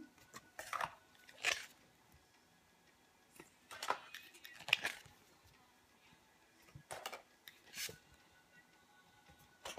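Oracle cards being handled, slid off a deck one at a time: six short sliding strokes, in three pairs a few seconds apart.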